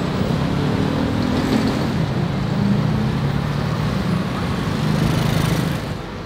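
Street traffic: the engines of passing vehicles hum and shift in pitch close by, with road noise beneath, and grow quieter shortly before the end.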